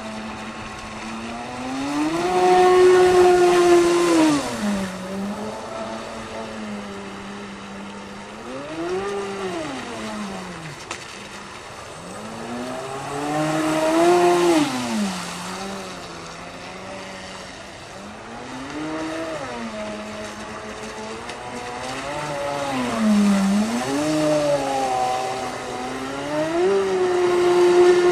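Princess RC model boat's electric motor, run on a 6S LiPo pack, whining at speed, its pitch climbing and falling several times as the throttle and passes change. It is loudest three times, about two seconds in, midway and near the end, with a hiss of spray off the hull at those peaks.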